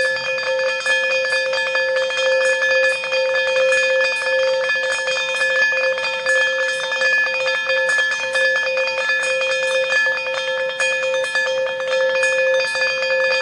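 Looping background music of a call-in TV quiz show: steady held tones under a regular ticking beat of about two ticks a second.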